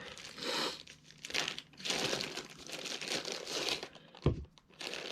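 Bubble wrap crinkling in irregular bursts as it is pulled off a packed camera lens, with a single knock about four seconds in.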